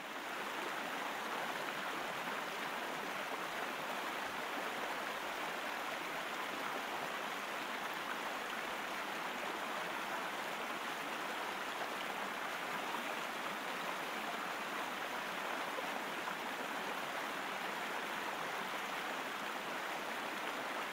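Small spring creek running steadily: an even, unbroken rush of flowing water.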